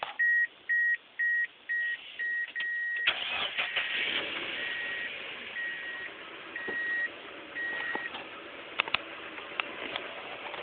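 A car's warning chime beeps about twice a second. About three seconds in, a Mazda Miata's four-cylinder engine starts and runs steadily while the chime slows to about one beep a second. A few sharp clicks come near the end. The engine is one the owner says has rod knock.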